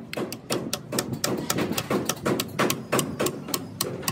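Steady run of sharp metallic clicks, about five a second, as a steel rod is jabbed repeatedly into the core of a Komatsu D155 dozer radiator to clear its tubes.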